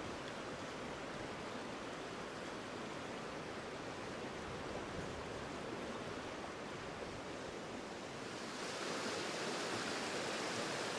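Steady rush of wind and running river water. About eight seconds in, it turns louder and hissier as the rushing of a shallow, stony rapid takes over.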